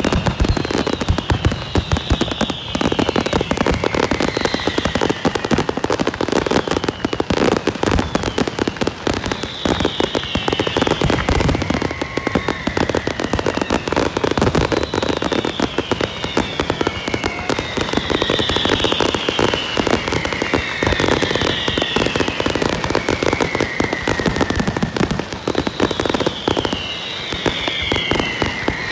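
A dense aerial fireworks barrage with continuous crackling and booming shell bursts. Over it, high whistles that fall in pitch repeat every second or two, often in pairs.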